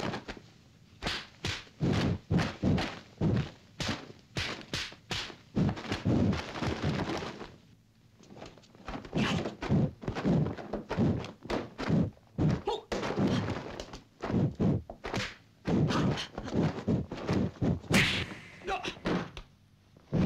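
Dubbed punch-and-kick impact effects of a kung fu film fight: quick thuds and thwacks in rapid runs of several a second, with a brief lull about eight seconds in.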